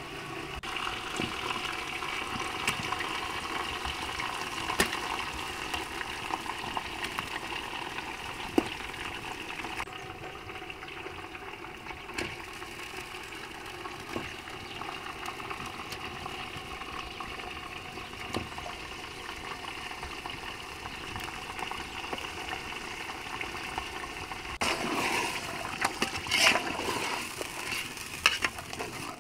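A steady rush of water with scattered light clicks. About 25 seconds in, a busier run of clicks and knocks joins it.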